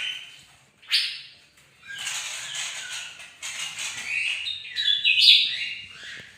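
A songbird singing vigorously in a run of high, sweeping phrases, with a sharp call about a second in and a denser stretch of song from about two seconds on.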